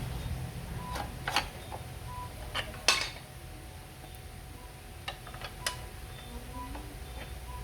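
Scattered metal clinks and taps of tools and parts being handled, a sharper clink about three seconds in, over a low steady hum.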